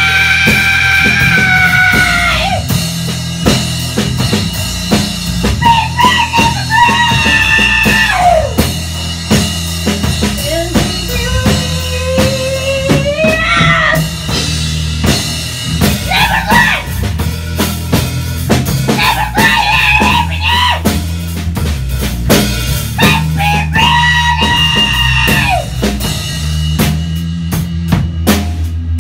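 A live band song: a woman sings into a microphone over a full acoustic drum kit played with kick, snare and cymbals, in held and gliding phrases. Near the end the singing stops and the drums play on alone.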